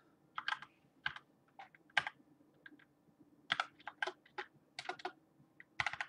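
Typing on a computer keyboard: irregular keystrokes, sometimes two or three close together, with short pauses between them.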